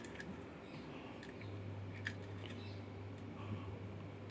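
A few faint clicks and light handling noises of small parts and tools, over a low steady hum that sets in about a second and a half in.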